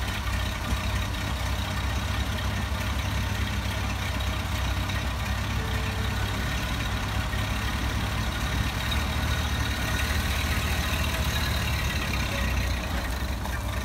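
Ford Model A's four-cylinder flathead engine idling steadily.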